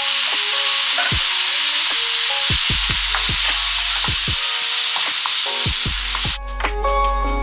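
Chickpeas frying in oil with curry powder, sizzling loudly in the pot. The sizzle cuts off suddenly about six seconds in. Background music with a beat plays throughout.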